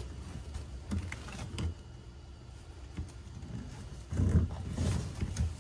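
Rummaging through a plastic storage box of inflatable pool toys and vacuum hoses: a few light knocks and rustles, then louder low rumbling from about four seconds in.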